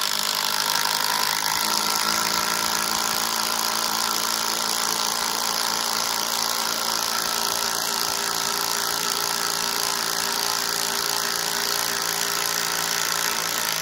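DeWalt DCF885 brushed 20V impact driver hammering steadily as it drives a half-inch lag bolt into a 4x6 timber. It is really struggling under the load.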